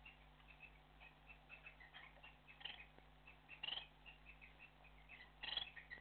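Faint, continuous chatter of small pet parrots (budgies and cockatiels): quick short chirps several times a second, with three louder squawks, a few seconds in, just after the middle and near the end.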